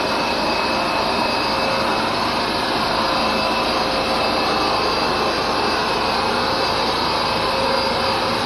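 Hoover SmartWash carpet cleaner running steadily, its suction motor going with a constant whine over a rushing hiss while its two brush rollers agitate the carpet.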